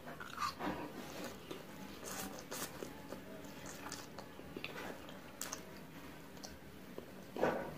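Close-up eating sounds of instant fried noodles: noodles sucked in from chopsticks and chewed, with short wet, squishy bites. A louder burst comes near the end.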